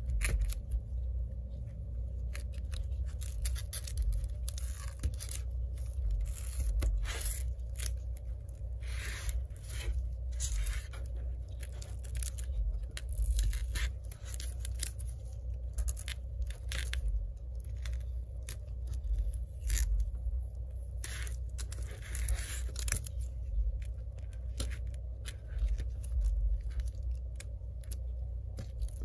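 Old screen adhesive tape being scraped and peeled off the edge of an iPad's aluminium housing with a pry tool: irregular short, scratchy scrapes and tearing strokes over a steady low hum.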